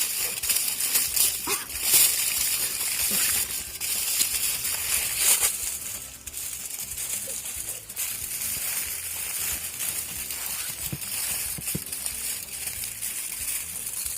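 Aluminium foil crinkling and rustling as potatoes are wrapped in it by hand, with scattered sharp crackles.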